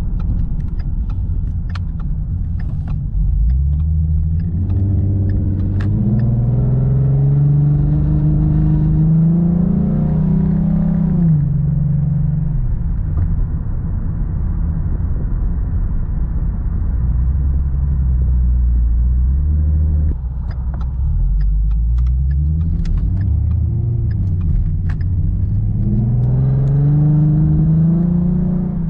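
2015 Ford Mustang's 3.7-litre V6, breathing through long-tube headers, an X-pipe and Magnaflow mufflers, pulling hard twice. Its pitch climbs from a few seconds in and drops off about eleven seconds in, it runs steadily lower for a while, and then it climbs again from about two-thirds through to near the end. The pulls pass through the range near 3,000 rpm where the owner reports a hesitation or hiccup, a dull rhythmic 'bum bum bum' as if bouncing off the limiter.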